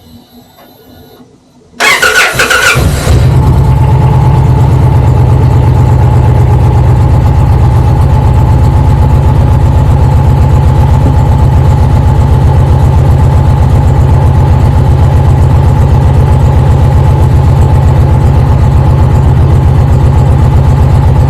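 Indian Challenger's V-twin engine starting up about two seconds in, then idling steadily with a faint whine over the low, even pulse.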